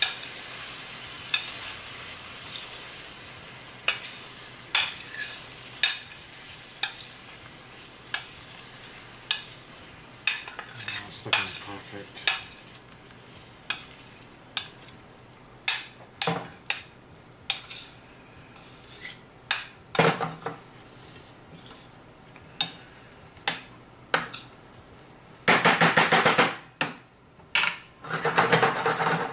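Banana slices sizzling in caramelized sugar in a stainless steel skillet as a utensil stirs them, clinking against the pan about once a second while the sizzle slowly dies down. Near the end come two loud bursts of fast scraping and clatter against the pan.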